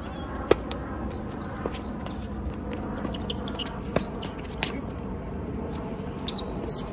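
Tennis racket strikes in a doubles rally on a hard court. A sharp pop from the serve about half a second in is the loudest. Fainter hits from the far end follow, then another close, sharp hit about four seconds in, with light shoe scuffs on the court between.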